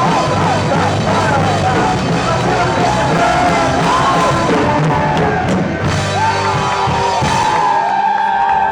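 Rock band playing live in a club hall, a wavering lead line over bass and drums. About three-quarters of the way through the band drops out and a single high note is left ringing, the close of the song.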